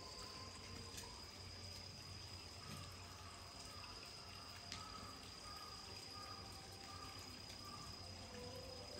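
Faint, steady trickle of running water, with a thin, steady high-pitched tone over it and a low hum underneath.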